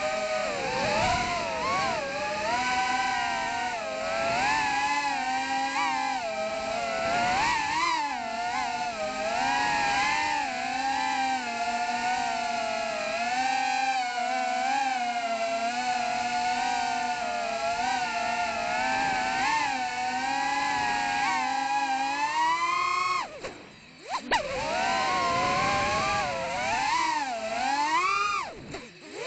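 Brushless motors of a 3.5-inch FPV quadcopter (Emax 2004 3000KV) whining, the pitch rising and falling with the throttle. The whine drops away for about a second twice, once about three-quarters of the way through and again just before the end, then comes back.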